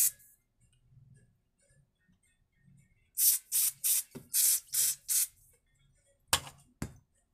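Aerosol spray can fired through a thin straw tube into small carburetor jets: about six short hissing bursts in quick succession to blow the jet passages clear. Near the end come two sharp clicks.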